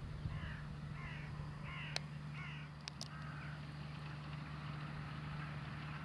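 A crow cawing about five times in quick succession during the first half, over the steady hum of a distant JCB Fastrac tractor's engine. Two sharp clicks come near the middle.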